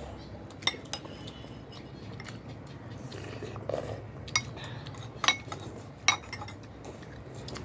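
Eating utensils clinking against a bowl, about half a dozen separate light clinks spread out, some with a short ring; the loudest come about five and six seconds in.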